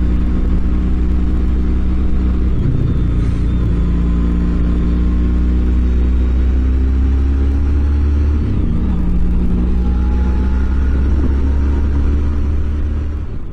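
2021 BMW R18 Classic's big boxer-twin engine running with a deep, steady rumble, its pitch climbing slowly and dropping back about three seconds in and again about nine seconds in, as on gear changes under acceleration. The sound fades away near the end.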